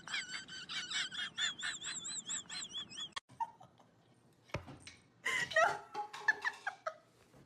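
A small animal's rapid, high-pitched wavering calls repeated several times a second for about three seconds, then after a short pause a briefer burst of calls.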